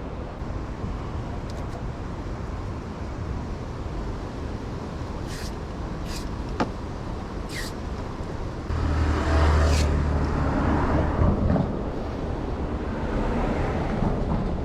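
Steady road-traffic rumble, swelling as a vehicle passes from about nine to eleven and a half seconds in, with a few short high hisses in the middle.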